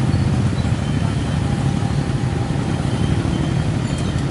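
Road traffic moving slowly past at close range: car, pickup truck and motorcycle engines running in a steady low rumble.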